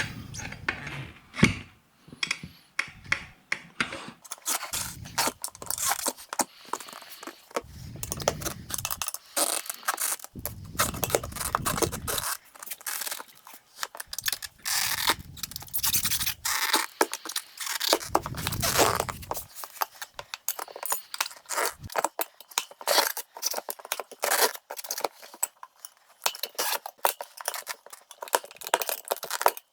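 Hand tools and hands working a motorcycle tire on its spoked rim to break the bead: repeated scraping and clicking of tire levers against rubber and rim, with a few longer, deeper rubbing stretches along the way.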